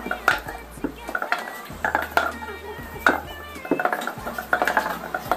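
Cups being flipped and set down again and again on a tabletop: quick, irregular light clacks and knocks of cups hitting the table.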